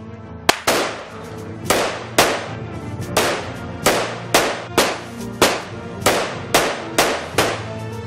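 A volley of about a dozen rifle shots, each a sharp crack with a short echoing tail, spaced roughly half a second to a second apart, over dramatic background music.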